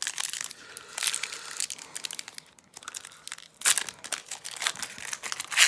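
Foil trading-card pack wrapper being torn open and crinkled by hand, in irregular crackles, the loudest a little after halfway and again near the end.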